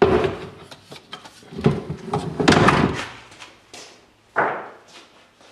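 Several knocks and scrapes of a knife and screwdriver working against a boiled whitetail deer skull as big chunks of softened meat are broken away.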